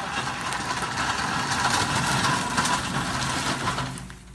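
An engine running steadily with a low hum, swelling and then fading away near the end.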